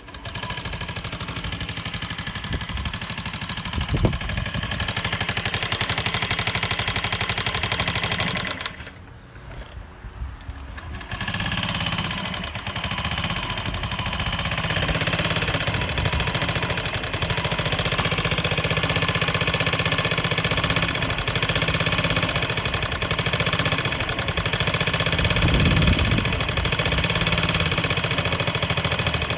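Honda Ruckus scooter's 49cc single-cylinder four-stroke engine running rough with an unidentified noise. The engine falls off about eight seconds in, then picks up again and runs harder. It is the sound of an engine that bogs and makes very little power, a fault the owner cannot yet name.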